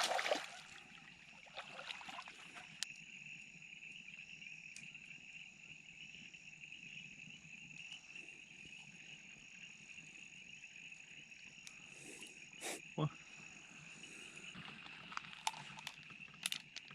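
A steady chorus of frogs calling in the background, with a couple of brief knocks about twelve to thirteen seconds in and another near the end.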